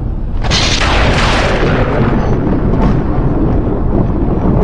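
A thunderclap starting suddenly about half a second in, its crackle fading over a couple of seconds into a low rumble, heard from inside a moving car over steady low road noise.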